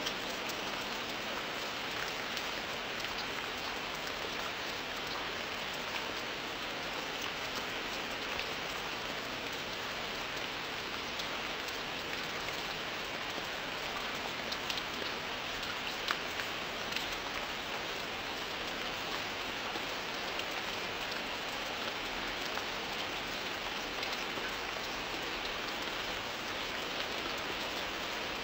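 Steady rain falling: an even, unbroken hiss with scattered sharper drop impacts.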